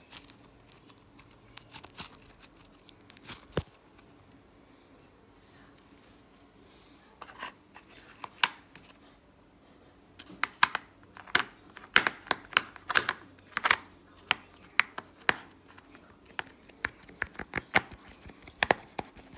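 Sticky slime being squeezed and poked by hand, giving sharp little clicks and pops. They come sparsely at first and then quickly and densely through the second half.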